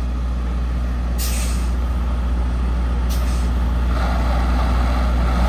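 Diesel engine of a stuck semi truck running with a steady low drone, with two short air-brake hisses about a second and three seconds in. A rushing noise builds in over the last second or so.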